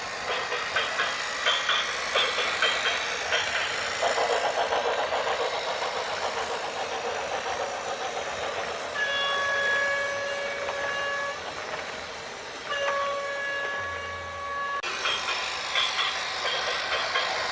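Clattering, rattling machine noise, then two long steady horn blasts, the second starting a little over a second after the first ends.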